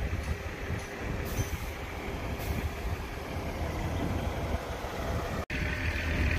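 Truck engine running steadily to drive a truck-mounted knuckle-boom crane lifting a bundle of timber, a low rumble with a brief dropout about five and a half seconds in, after which the engine hum is steadier.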